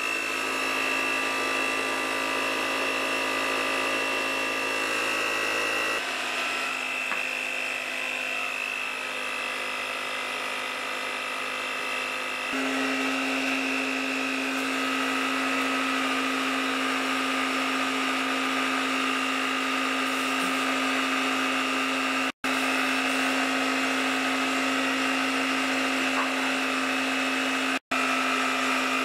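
Small Craftsman portable air compressor running steadily with a high motor whine, supplying a paint spray gun; the owner says it is too small to keep up with the gun. The sound cuts out for an instant twice near the end.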